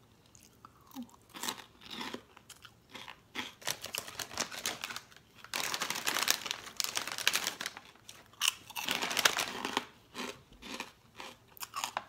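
Someone chewing crunchy fried pork rinds (khaep mu) close to the microphone, in irregular bursts of crunching, with a plastic snack bag rustling about halfway through.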